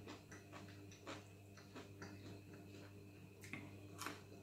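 Faint hand-eating sounds: small scattered clicks of chewing and of fingers working rice on a plate, with a couple of slightly louder clicks near the end. A steady low hum runs underneath.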